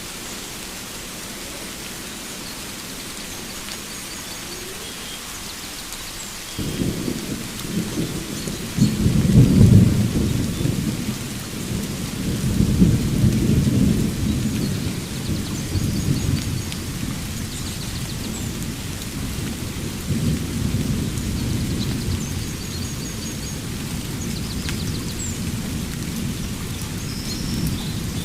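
Steady rain with thunder: a low rumble breaks in suddenly about a quarter of the way through, is loudest a few seconds later, and keeps rolling in swells. Faint high bird chirps come now and then over the rain.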